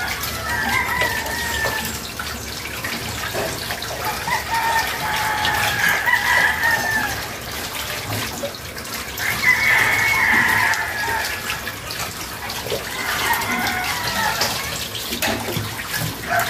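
Rooster crowing about five times, each crow a second or two long, over water running from a kitchen tap as a fish is rinsed by hand in the sink.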